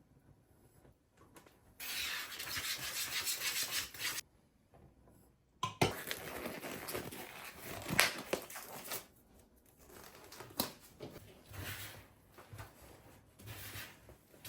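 Household handling noises: a rubbing or scrubbing sound for about two seconds, then a pause, then irregular clatter and knocks of objects being set down and moved, with the sharpest knock about eight seconds in.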